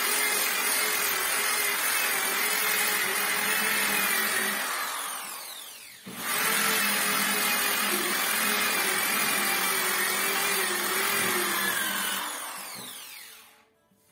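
Electric orbital sander with a round pad, sanding a wooden door. The motor runs steadily, is switched off about five seconds in and winds down, starts again about a second later, and near the end is switched off and winds down once more.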